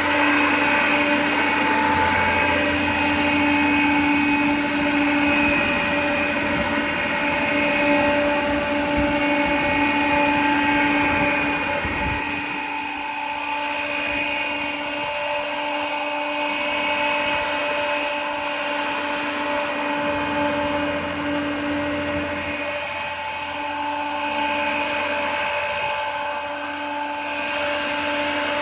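Old engine-driven farm blower running steadily, its engine and big fan making a constant hum with a whine on top that holds one pitch throughout, dipping slightly in loudness about halfway through.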